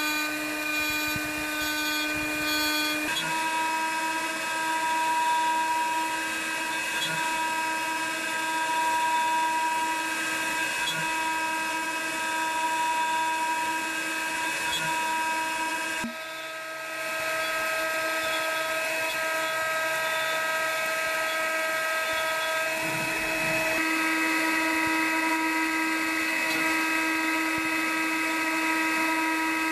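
CNC milling machine spindle cutting a wooden blank with a 6 mm radius cutter. The steady whine changes pitch about three seconds in, dips briefly around the middle, and shifts again later on.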